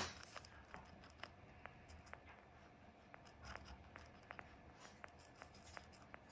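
Long-haired Syrian hamster chewing a grape: faint, irregular small wet clicks and smacks, with a brief louder rustle at the very start.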